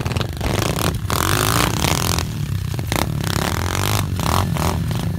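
Small pit-bike engines running and revving as they ride through tall grass, with an uneven, crackly rough noise over them.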